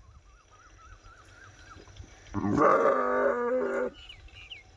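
A sheep bleating once, one long baa lasting about a second and a half, with a few faint high bird chirps near the end.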